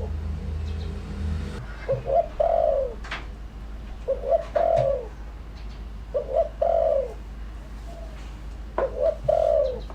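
Spotted dove cooing: four phrases about two seconds apart, each a couple of short coos and then a longer coo that falls in pitch.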